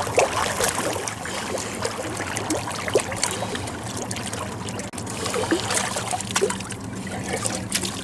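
Water splashing and trickling as a person swims up to an inflatable boat, with many small irregular splashes, over a faint steady low hum.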